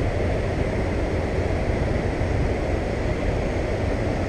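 Steady rushing of river water spilling over a low-head dam, an even noise with a strong low rumble.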